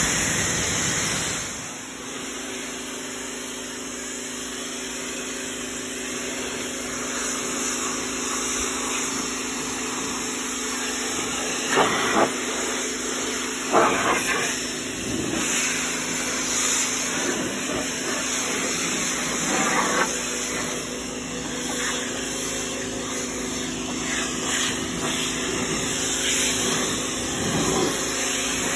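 Pressure washer spraying a car's steel wheel and door panel: a steady hiss of the water jet over the even hum of the washer's pump, with a few short louder spikes partway through.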